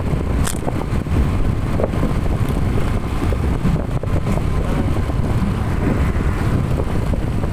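Riding noise of a Suzuki Avenis 125 scooter on the move: a steady wind and road rumble on the mirror-mounted phone's microphone, with the scooter's engine running beneath.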